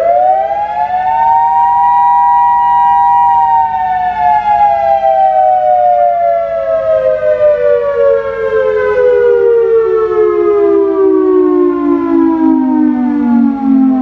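SiraTone EOWS 115 electronic outdoor warning siren sounding loudly, two close tones together: the pitch finishes rising, holds high for a few seconds, then glides slowly and steadily down and cuts off near the end.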